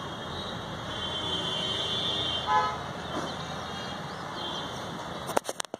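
Steady road-traffic noise with one short vehicle horn toot about two and a half seconds in, then a few sharp clicks just before the end.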